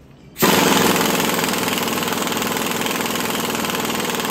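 Air impact wrench hammering steadily as it drives down the screw of a strut spring compressor, compressing the coil spring to take its tension off the strut. It starts suddenly about half a second in.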